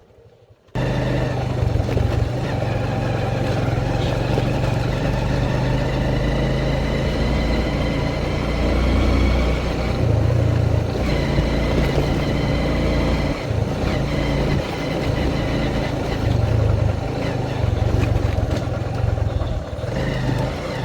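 Vehicle engine running steadily with rumbling wind noise on the microphone while on the move. It cuts in suddenly about a second in.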